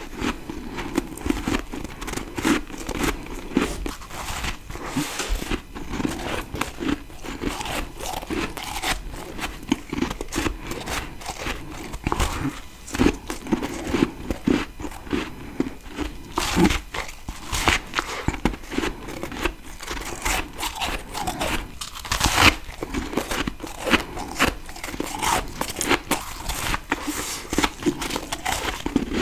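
Freezer frost being bitten and chewed close to the microphone: continuous crunching and crackling, dense with small sharp cracks.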